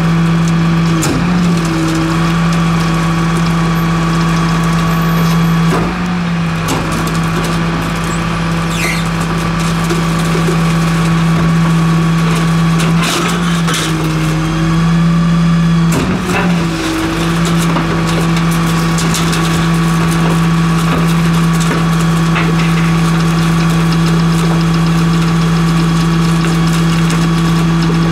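Rear-loader garbage truck's diesel engine running steadily to drive the packer, its note dipping briefly a few times, with several sharp cracks and knocks of bulk items being crushed in the hopper.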